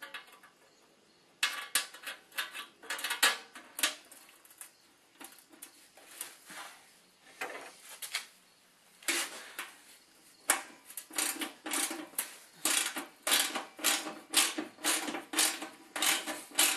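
Irregular metallic clicks and clinks of a hand wrench and bolts as the skid plate bolts are run into a snowblower's underside, coming in quick runs that grow denser over the last several seconds.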